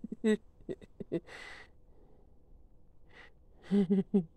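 A person's soft voice making short murmured baby-talk sounds and breathy sighs, with a few sharp little clicks about a second in.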